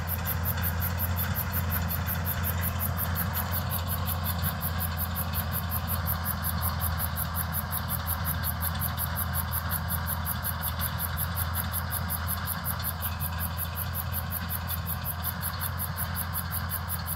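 Ford tractor engine running steadily at a constant pitch while it works a hayfield with a hitched hay mower-conditioner.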